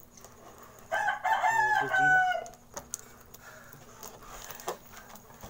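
A rooster crowing once, about a second in, ending on a long held note that falls slightly.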